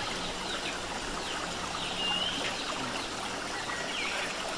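Several short, high chirps, some gliding up or down in pitch, over a steady rushing hiss like trickling water.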